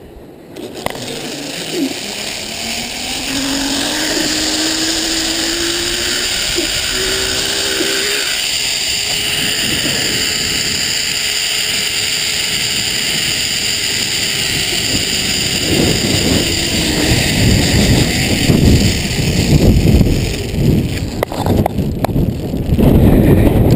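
Zip-line trolley pulleys running along the steel cable: a rushing hiss with a whine that rises in pitch over the first several seconds as the rider picks up speed. In the last third it is joined by a louder, uneven low rumble.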